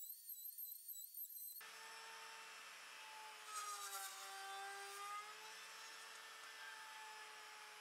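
Router with a spiral bit, mounted on a Pantorouter, running and cutting a tenon in a wooden blank. Its steady whine sags in pitch and gets louder for about a second and a half, from about 3.5 s in, as the bit bites into the wood, then recovers.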